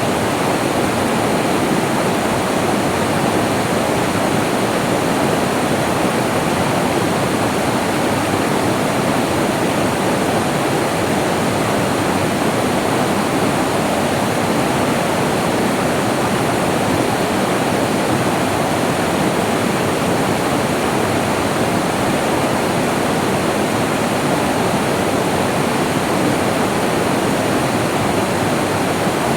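Flowing water running steadily: an even, unbroken rush of a stream or small waterfall.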